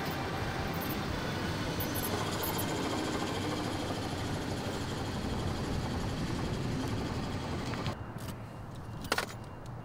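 A car driving up, a steady rush of engine and tyre noise. About eight seconds in it drops to a quieter hum, with two short sharp clicks near the end.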